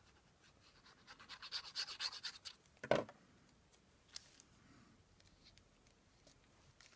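Quick back-and-forth scratchy strokes on paper, about eight to ten a second, as paper is worked flat for a decoupage-style layer. The strokes are followed by one sharp thump, the loudest sound, then a small click.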